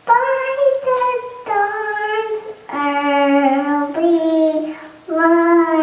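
A young child singing into a handheld microphone: a slow melody of long held notes with short breaths between them, the pitch stepping down partway through and then rising a little again.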